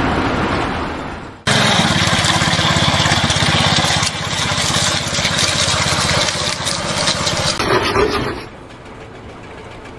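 A motor or machine running loudly with a fast, even pulse, cutting in abruptly about a second and a half in and dropping away near the end.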